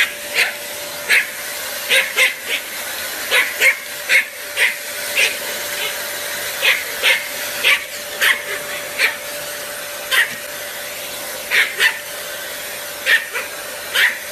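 Small Pomeranian barking in repeated high, sharp yaps, often in quick pairs, over the steady hum of a running vacuum cleaner.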